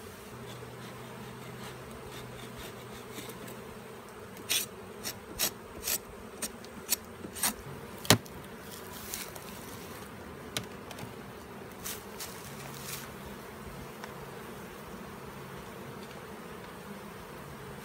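Honey bee colony humming steadily. Between about four and thirteen seconds in there is a string of sharp wooden cracks and knocks, the loudest near the eight-second mark, as the top hive box is broken loose from the stack and lifted off.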